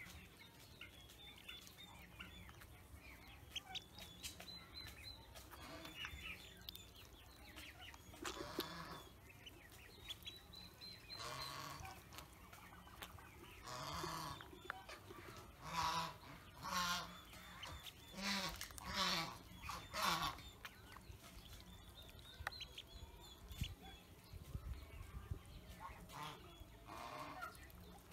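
Pekin ducklings peeping over and over, with a run of louder, harsher calls in the middle.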